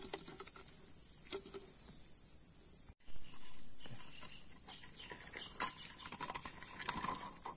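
Insect chorus: a steady, high-pitched pulsing trill, with scattered small clicks and knocks. The sound cuts out briefly about three seconds in.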